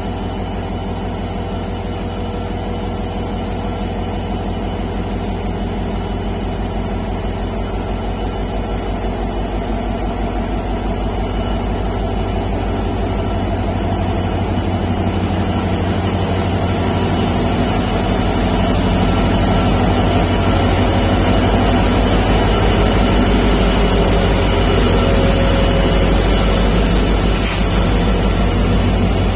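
EMD WDG4 diesel-electric locomotive's two-stroke V16 engine running with a steady deep hum, growing slowly louder over the stretch.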